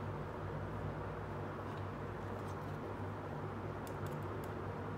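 Steady low background hum, with a few faint light clicks as small plastic toy pieces are handled.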